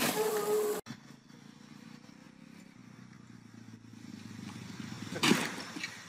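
A loud voice is cut off under a second in. Then a distant small engine runs faintly as a low hum that grows louder, from a small vehicle crossing a lawn. A short, loud, noisy burst comes about five seconds in, as it reaches a pole.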